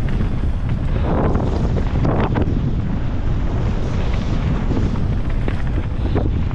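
Wind buffeting the microphone on a fast mountain-bike descent, a steady loud rush. Louder surges of trail noise come about one and two seconds in.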